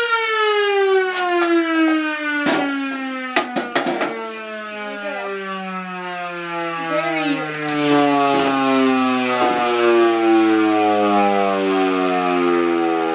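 Federal Signal Model 2 electromechanical siren winding down after its power is cut, its tone falling slowly and steadily in pitch as the rotor coasts. A few sharp knocks come about two and a half and four seconds in.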